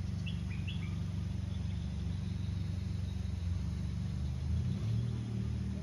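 A steady low rumble, with a few short bird chirps in the first second.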